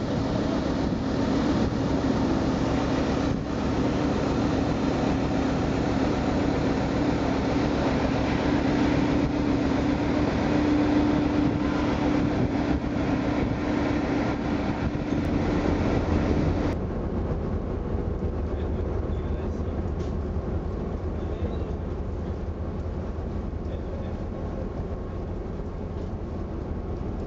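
Steady machinery drone of a ferry's engines, with a constant hum; about 17 seconds in it cuts abruptly to a quieter, deeper hum.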